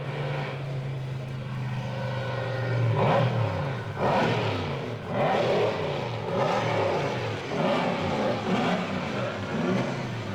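Vintage Mercedes-Benz Grand Prix car engine, first running at a steady note, then revved hard again and again from about three seconds in, its pitch rising and falling roughly once a second.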